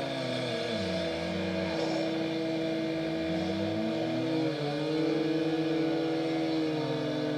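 Engines of road construction machinery running, their pitch rising and falling as they are revved and eased off, with one held steady in between.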